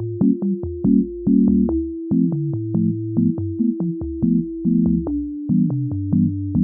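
Upbeat electronic background music: a held synthesizer note over short keyboard chords, a bass line and a steady ticking drum-machine beat.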